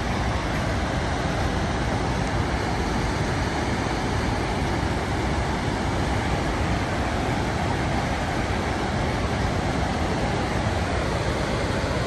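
Gullfoss, a large two-tier waterfall, rushing steadily: an even, unbroken noise of falling water.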